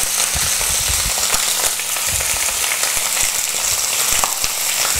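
Chicken pieces frying in hot olive oil in a frying pan: a steady sizzle with frequent sharp crackles and spitting, caused by water left on the chicken pieces.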